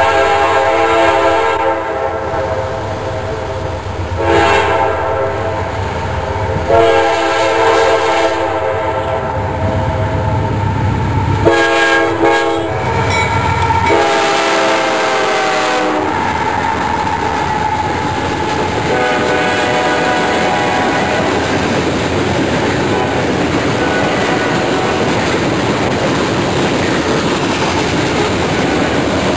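CSX GE AC4400CW diesel locomotive sounding its air horn in a series of long blasts for a grade crossing as it approaches and passes, its engine rumbling underneath. After about 16 seconds the horn stops, and the steady rolling clatter of hopper cars going by takes over.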